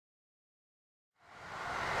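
Silence, then about a second in the noise of an approaching train made up of a DE10 diesel locomotive and a D51 steam locomotive rises steadily as it nears.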